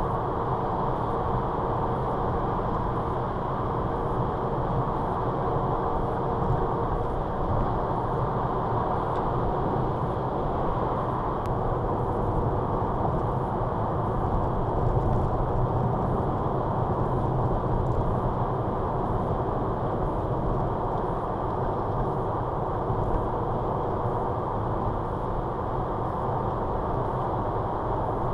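Steady tyre and road noise with engine hum from a car cruising at motorway speed, heard from inside the cabin.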